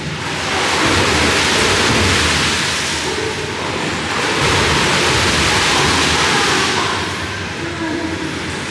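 Water rushing and splashing in an indoor swimming pool, swelling loud twice for a few seconds each time.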